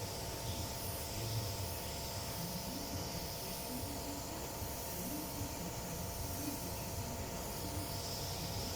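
Steady hiss over a constant machine hum, unchanging throughout.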